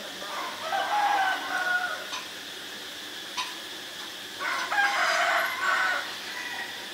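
A domestic rooster crowing twice, each crow about a second and a half long, the second about three and a half seconds after the first. A thin steady high buzz runs underneath.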